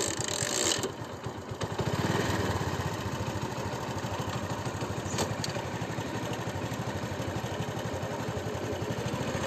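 Hero Honda Passion motorcycle's single-cylinder four-stroke engine catching with a loud burst, then running at a steady, evenly pulsing idle that picks up briefly about two seconds in.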